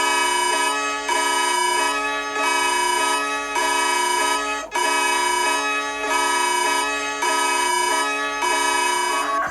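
Emergency alert tone: a synthesized chord of steady electronic tones alternating between two chords about once a second. It breaks off briefly and restarts about halfway through, then stops just before the end.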